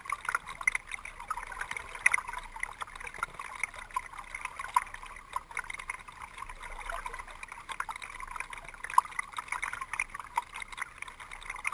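Water splashing and dripping as a kayak is paddled with a double-bladed paddle: a steady crackle of drips and small splashes from the blades and the hull, with sharper little splashes scattered throughout.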